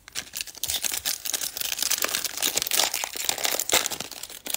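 Foil wrapper of a baseball card pack being torn open and crinkled by hand, a dense run of fast crackles.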